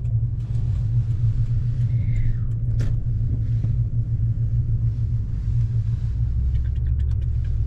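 Steady low rumble of road and engine noise inside the cab of a pickup truck moving along a paved road.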